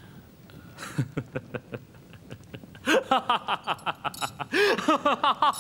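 A man laughing: soft, breathy chuckles start about a second in and break into loud, rapid, rhythmic ha-ha laughter about three seconds in.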